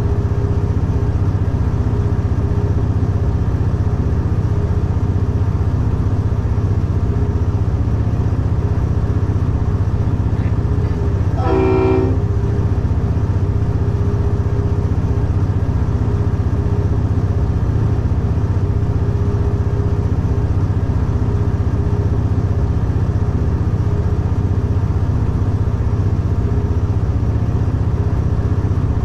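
A class diesel locomotive running steadily, heard from inside its cab as a constant low engine drone. About eleven seconds in, the locomotive's horn sounds one short blast lasting about a second.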